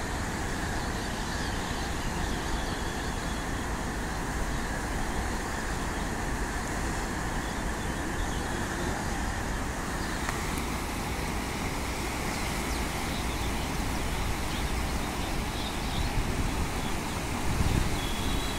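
Steady rushing of a flooded, fast-flowing muddy river swirling past concrete bridge piers. Wind rumbles on the microphone near the end.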